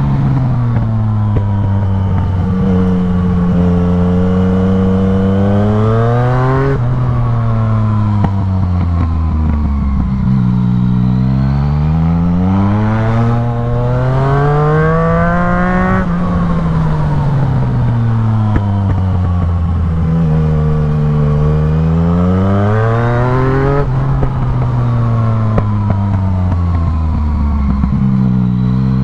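A 2016 Yamaha MT-09's 847 cc inline three-cylinder engine, breathing through an aftermarket Black Widow full exhaust, pulling hard and backing off again and again. The engine note climbs and falls several times, with a few sudden steps in pitch where the gears change.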